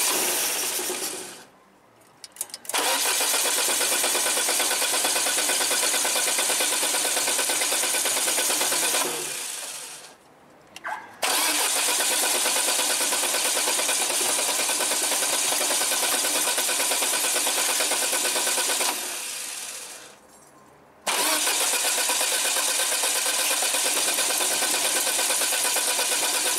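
Carburetted VAZ-2110 engine being cranked on the starter with the choke pulled, in repeated long attempts of several seconds, each tailing off, with short pauses between them. It is struggling to start and run because water has got into the petrol.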